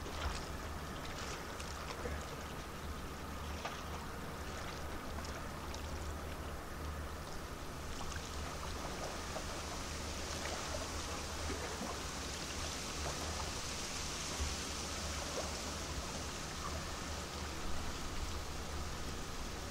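Cruise ship MSC Poesia passing close by: a steady low hum from the ship with water washing along its hull. A higher hiss comes up about eight seconds in.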